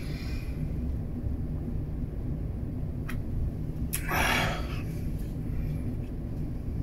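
Steady low rumble of a ship's engines heard inside a cabin. A sip from a beer can at the start and a short breathy exhale about four seconds in.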